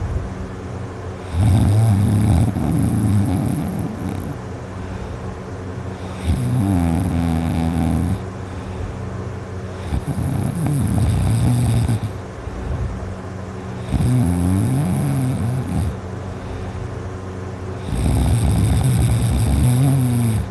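A person snoring in deep sleep, loud and high-pitched, one snore with each breath. Five snores, each about two seconds long and coming about every four seconds, with quieter breathing between.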